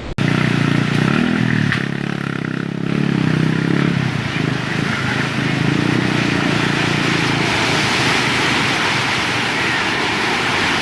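A motor running, its hum fading after about four seconds, under a steady loud rushing noise.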